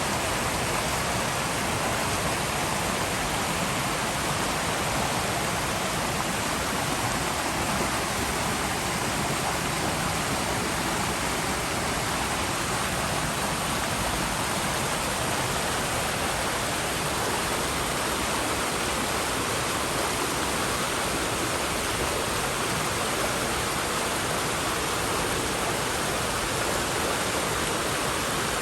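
River water rushing steadily over rocks, an even unbroken rush with no change.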